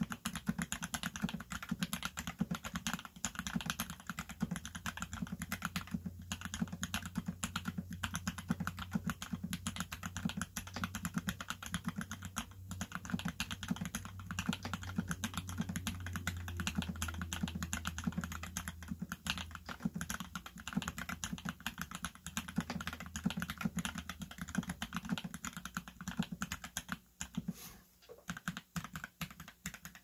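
Fast, continuous typing on a TX87se mechanical keyboard fitted with lubed and filmed Gateron Ink switches, a quick steady patter of key strokes that thins out near the end.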